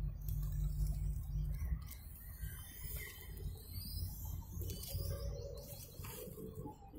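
Birds chirping and calling in the trees, many short high calls overlapping. A low rumble on the microphone is the loudest sound in the first two seconds, then fades.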